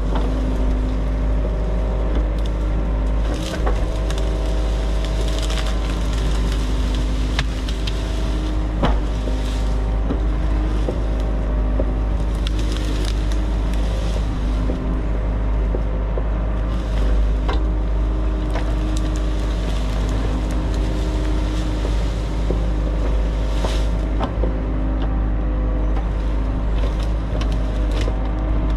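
Mini excavator's diesel engine running steadily, with repeated sharp knocks and cracks of wood breaking as trees are cleared.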